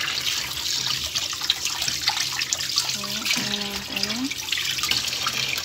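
Kitchen tap running into a basin of water while a hand swishes and rubs a whole fish in it, with steady splashing and small water clicks throughout.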